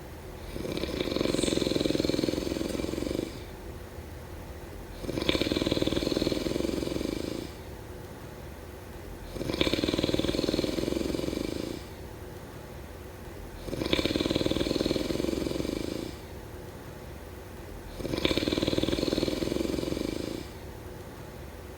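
Snoring in a steady rhythm: five long snores about four seconds apart, each lasting a couple of seconds, with quieter gaps between them.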